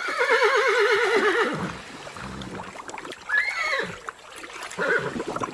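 Horse whinnying: one long, loud, quavering whinny for the first second and a half, then two shorter, quieter calls about three and five seconds in.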